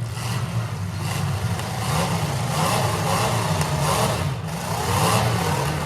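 Demolition derby cars' engines running and revving, their pitch rising and falling.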